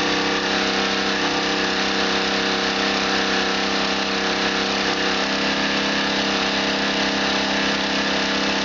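Engine-driven generator of an ebike hybrid charging setup running steadily under load while it charges the 72V battery. Its even hum echoes off the garage walls.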